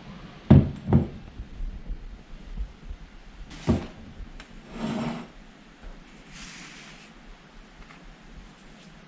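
Glass bowl and woven bamboo tray set down on a wooden table: two knocks about half a second apart near the start, a third knock a few seconds later, then a short scrape and a soft rustle.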